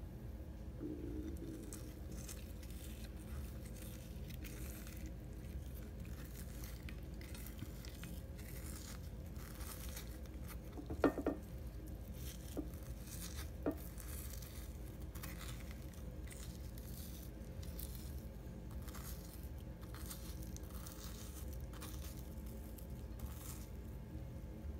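Frozen bacon rashers being pulled and torn apart by hand on a ceramic plate: quiet, irregular tearing and rubbing, with a few sharp clicks about halfway through, over a steady low hum.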